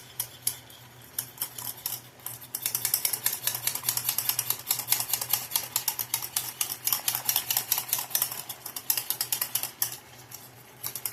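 Wire whisk beating a butter-and-flour gravy in a pan, its wires clicking rapidly against the pan as the gravy thickens. The clicking is sparse at first, becomes fast and steady about two and a half seconds in, and pauses briefly near the end.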